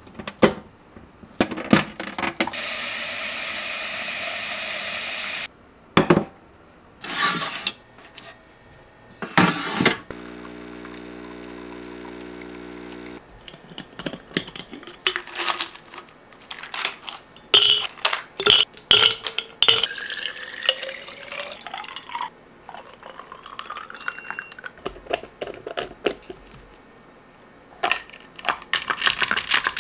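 Tap water running at a kitchen sink while a clear plastic container is rinsed, with knocks and clinks as it is handled. About ten seconds in, a short steady electric hum. Then liquid is poured over ice into a plastic jar, rising in pitch as it fills, and ice clinks as it is stirred with a straw near the end.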